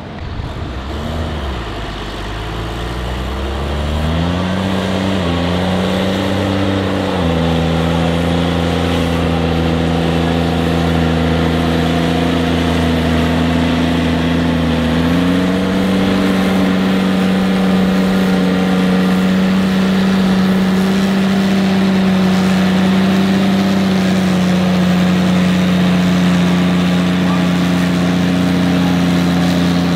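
A JCB Fastrac tractor's diesel engine runs hard under load while towing an unloaded dump truck. The revs climb over the first few seconds, step up a few times, and then hold at a steady high pitch.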